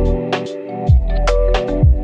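Background electronic music with a beat: deep kick drums that drop in pitch, sharp percussion hits and held synth chords.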